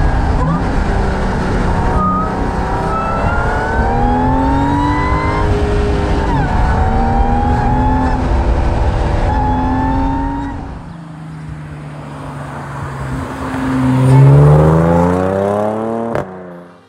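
Audi S4 accelerating hard through the gears, its engine note climbing and then dropping back at each upshift over heavy road noise. After a cut, the engine note rises again to the loudest point as the car accelerates up the road toward the camera.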